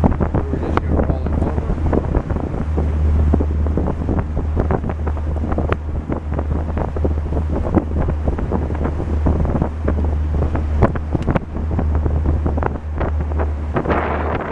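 Fishing boat running on the river: a steady low motor drone with frequent knocks and slaps from the hull on the waves, and wind buffeting the microphone.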